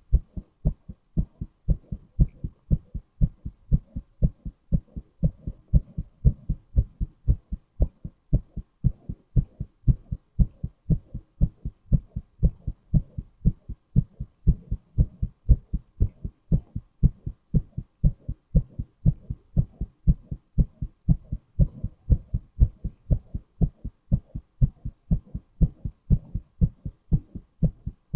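A man's heartbeat beating steadily, an even rhythm of low thumps with no change in pace.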